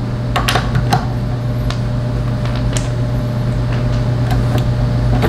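Steady low hum, with scattered sharp metallic clicks and clinks from a lug wrench and lug bolts as the bolts are taken off a car wheel.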